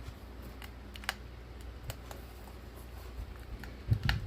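Small scattered clicks and taps of a plastic figurine and stopper being handled and fitted into the opening of a glass snow globe, with a louder cluster of clicks and knocks near the end.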